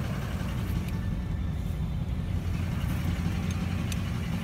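Pickup truck engine idling steadily, heard from inside the cab, with a few faint clicks.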